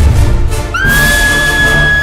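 Music: a dense low backing with a held high note that slides up into pitch about three-quarters of a second in and then holds steady.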